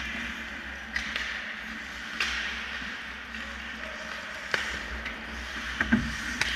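Ice hockey play around the net: skates scraping the ice in a steady hiss, with about six sharp clacks of sticks and puck, the loudest near the end, over a low hum of the rink.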